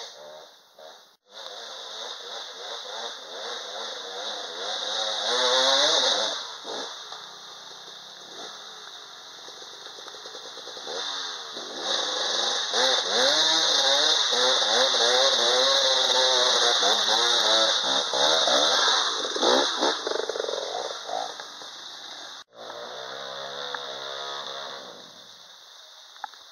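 Dirt bike engines revving, their pitch climbing and falling again and again as the bikes ride the trail; loudest in the middle stretch. The sound breaks off sharply twice where one clip gives way to the next.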